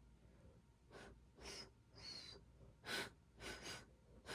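Penberthy steam whistle being blown by mouth: about six short, faint, breathy puffs, a few carrying a thin high whistle tone. Lung power is not enough to make the whistle sound properly.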